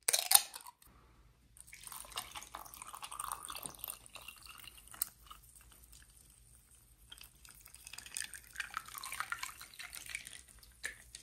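Mocha coffee being poured over ice into a cup: two spells of pouring and splashing, the first about a second and a half in, the second around eight seconds in.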